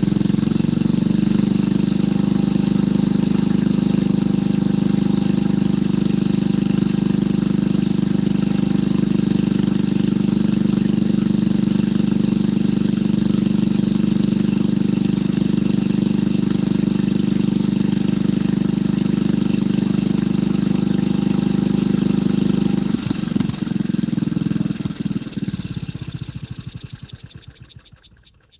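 Motorcycle engine idling steadily. About 23 seconds in it is shut off: the firing pulses slow and fade until it stops near the end.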